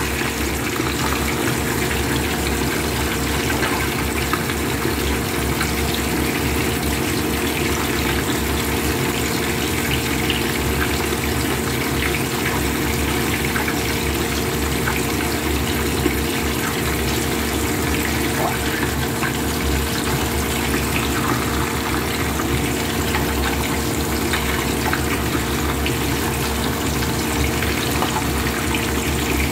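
Hot oil sizzling and bubbling steadily around whole fish frying in a pan, with small scattered pops. A steady low hum runs underneath.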